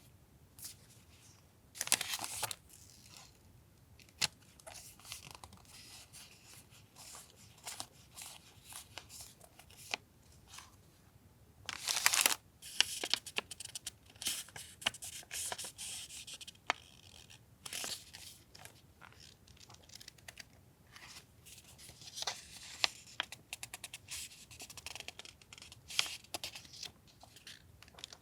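Paper sheets and sticker packs being handled: rustling and crinkling with sharp tearing and peeling sounds. The loudest bursts come about two seconds in and again around twelve seconds.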